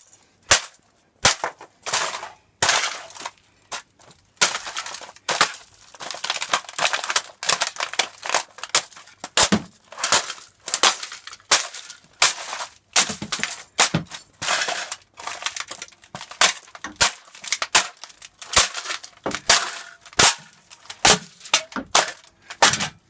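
A laptop being smashed apart: repeated sharp, hard blows, roughly one to two a second, with cracking and breaking.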